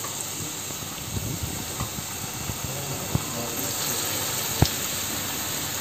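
Mashed banana batter deep-frying in hot oil in a wok: a steady sizzle, with two sharp taps, the louder one about four and a half seconds in.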